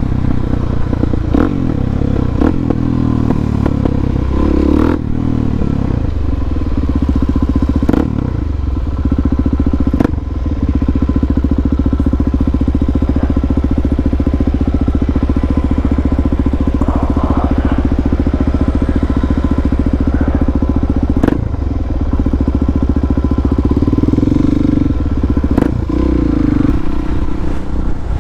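Harley-Davidson Dyna's V-twin engine running under way, the engine note changing over the first few seconds and again near the end, with a long steady cruise between. Sharp clicks or knocks are heard now and then over the engine.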